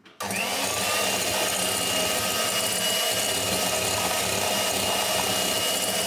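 Electric hand mixer whipping egg whites, its motor running at one steady speed with a high whine.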